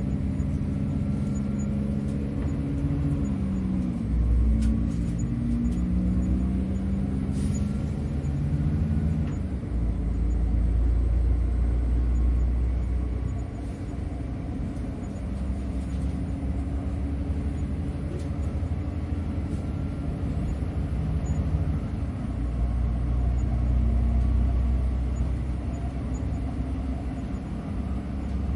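Train running with a deep, continuous rumble and a low engine drone that shifts in pitch several times in the first few seconds, then settles.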